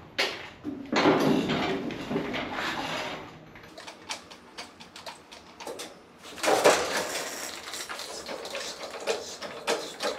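Scraping and clattering of handled objects, with a run of quick sharp clicks in the middle.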